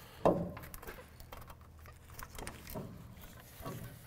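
Handling noise as a brake caliper is hung from the control arm on a bungee cord. There is a short creak about a third of a second in, two fainter creaks later, and small scattered clicks of metal and cord.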